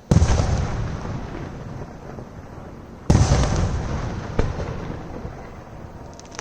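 Two large aerial firework shells bursting about three seconds apart. Each is a heavy boom that rolls away slowly over a few seconds, with a smaller crack between them.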